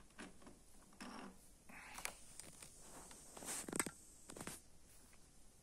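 Faint handling sounds of a small die-cast toy car being moved and set down on a diorama surface: light scrapes and clicks, the loudest a couple of short scrapes a little past the middle.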